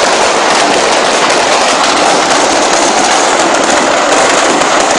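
Stock of fireworks and firecrackers going off in a burning shop: a dense, unbroken crackle of many small rapid pops, steady in loudness.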